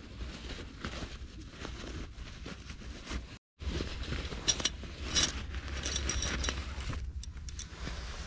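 Handling rustle as guy ropes come out of a drawstring bag, then titanium tent pegs clinking against each other as they are pulled from a nylon stuff sack, with several sharp metallic chinks about halfway through.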